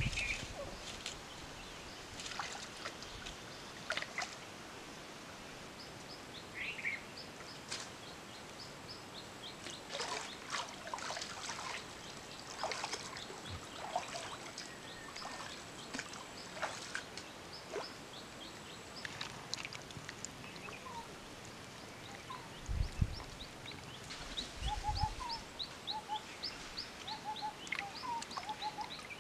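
Water splashing and sloshing as a person wades through a shallow muddy stream, in bursts through the middle, with two low thumps later on. Birds chirp throughout, with a quick run of short repeated chirps near the end.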